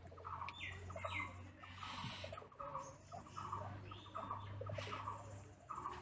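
Rabbits chewing fresh grass and weeds, a quick crunching that comes in short bouts about twice a second, with birds chirping in the background.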